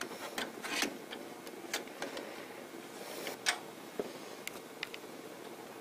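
Scattered light clicks and taps of plastic and metal parts being handled as a replacement head cap assembly is fitted into a Glunz & Jensen iCTP platewriter, about ten in all at irregular intervals, over faint steady background noise.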